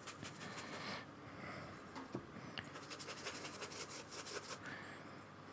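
Faint dry scratching of a paintbrush scrubbed quickly back and forth over paper, in two spells of rapid strokes with a pause between them.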